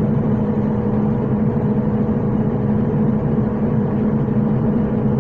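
Combine harvester's diesel engine and threshing machinery running with a steady drone at constant pitch.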